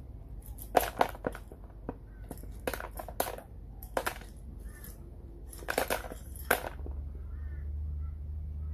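Bursts of sharp clicks and knocks in four clusters, from handling the DIY knife tumbler and its abrasive media, then a low steady hum begins about seven seconds in.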